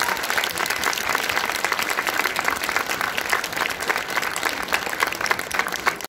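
Audience applauding, many hands clapping.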